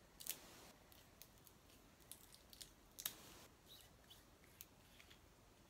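Faint, scattered small clicks and short scrapes of a plastic liquid-eyeshadow tube being handled and its cap twisted open.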